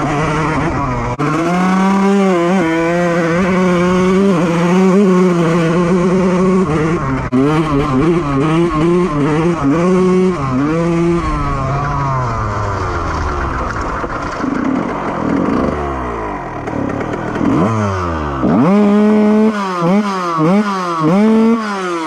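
2001 Honda CR125R single-cylinder two-stroke motocross engine being ridden: held high in revs with the throttle wavering for about ten seconds, then winding down as the bike rolls off. About eighteen seconds in it revs up sharply, followed by several quick rises and drops in revs near the end.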